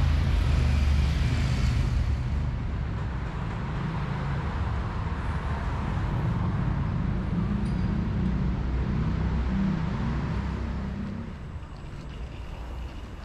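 City street traffic: a motor vehicle's engine running close by with tyre noise, then fading away about eleven seconds in.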